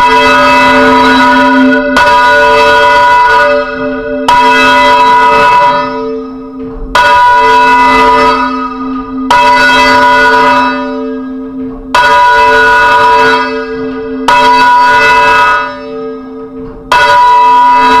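A church bell hung on a wheel for full-circle ringing, struck eight times about every two to two and a half seconds. Each stroke is a very loud clang with the same pitch that rings on and fades before the next, heard close up inside the bell chamber.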